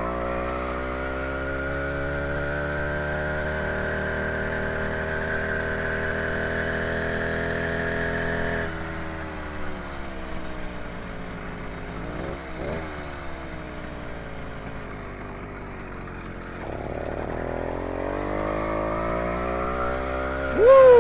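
80cc two-stroke motorized-bicycle engine running under throttle, its pitch climbing slowly. About eight and a half seconds in the revs drop suddenly and slide down to a lower, quieter run, then climb again near the end. A brief loud falling squeal comes right at the end.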